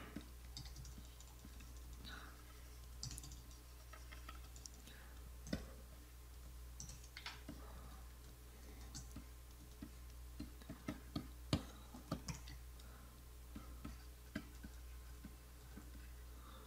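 Faint, irregular clicking of computer keyboard keys, with a quicker run of clicks about ten to twelve seconds in, over a low steady hum.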